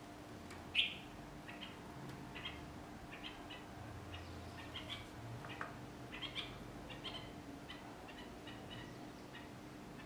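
Small birds chirping: a quick run of short, high calls, the loudest about a second in, over a faint steady hum.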